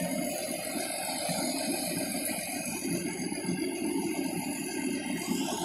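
A fire engine's engine running steadily at the scene, a low even drone with no change.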